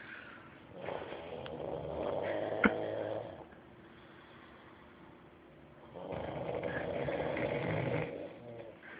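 A person snoring: two long snores, each lasting about two to two and a half seconds, with a pause of a few seconds between them.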